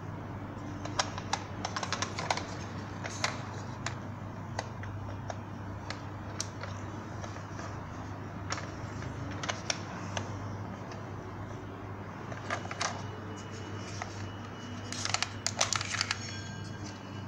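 Hard plastic parts of a Bandai ThunderCats toy vehicle clicking and knocking as it is handled and its pieces are moved, scattered single clicks with a quick run of them about fifteen seconds in.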